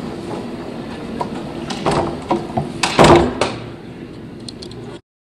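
A wooden office door being handled: a few knocks and clatters about two seconds in, then the loudest bang about three seconds in, over a steady hum. The sound cuts off abruptly about five seconds in.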